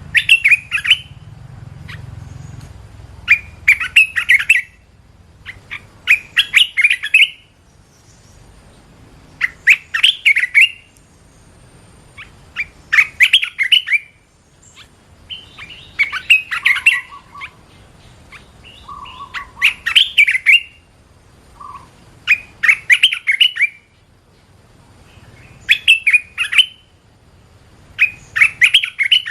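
Red-whiskered bulbul singing: short, bright warbled phrases of about a second each, repeated roughly every three seconds.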